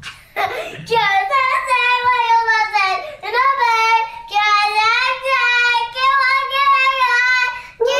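A yellow Labrador retriever howling in long, slightly wavering notes, three howls with short breaks between them, while a small child howls along with it.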